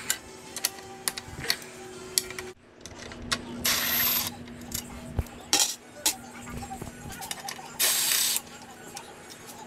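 Cordless power driver run in two short bursts, about half a second each and some four seconds apart, working fasteners on top of a 1985 Mercury 90 hp outboard's powerhead, with scattered clicks and knocks of handling between.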